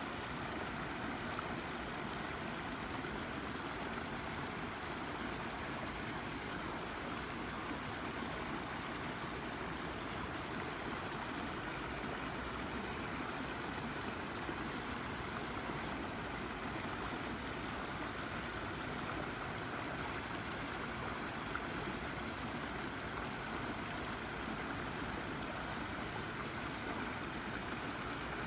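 Shallow brook babbling and gurgling over a rock in a steady, unbroken flow.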